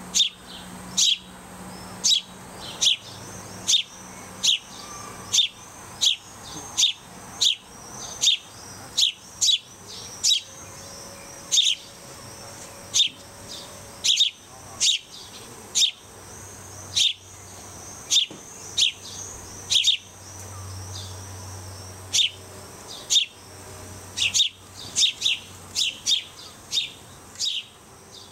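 House sparrow fledglings begging insistently: short cheeps falling in pitch, repeated about once or twice a second, sometimes in quick pairs.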